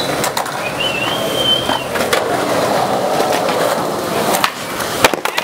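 Skateboard wheels rolling on concrete, with a few sharp clacks of the board, most of them close together near the end.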